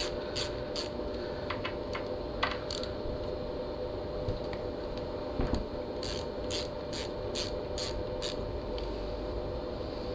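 Socket ratchet undoing the 10mm front brake caliper bolts, worked in short back-swings that give a rasp of pawl clicks about twice a second. One run of clicking at the start and another about six seconds in, with a couple of single knocks between them, over a steady low hum.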